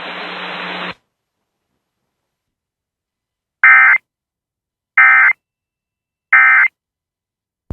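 Emergency Alert System end-of-message: three short, loud, buzzy digital data bursts about 1.3 seconds apart, the SAME header tones that close an alert. Before them, a steady broadcast hiss with a low hum runs for about a second, then cuts off suddenly.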